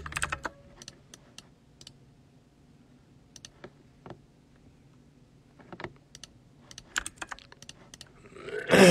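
Computer keyboard typing: scattered, separate key clicks with gaps between them. Near the end, a loud, brief sound that falls steeply in pitch.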